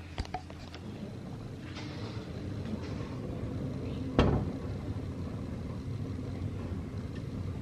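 Gas hob burner running under an aluminium stovetop espresso maker, a steady low rumble of flame. A few sharp clicks come near the start, and one loud knock about four seconds in.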